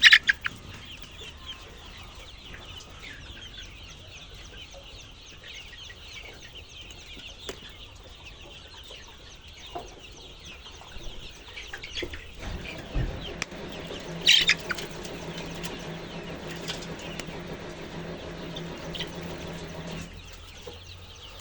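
Chickens clucking and chirping continually, with wings flapping and a few sharp knocks, the loudest right at the start and about 14 seconds in. A steady mechanical hum comes in about 12 seconds in and stops near the end.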